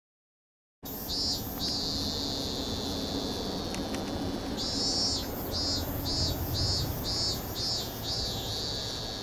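Briefly silent, then a cicada singing: one long drawn-out note, then a run of short repeated notes about two a second, over a low outdoor rumble.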